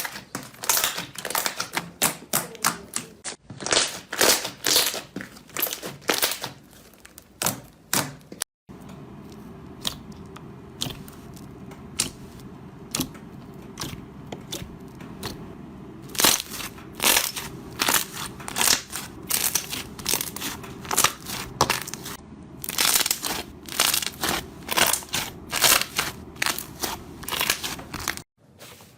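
Slime being squished and pressed, giving a rapid run of crisp crackling pops and clicks across several short clips cut together.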